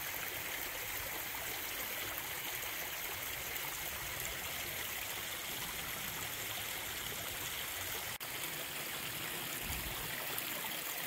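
Mountain stream running over rocks, a steady even wash of water broken once by a split-second gap about eight seconds in.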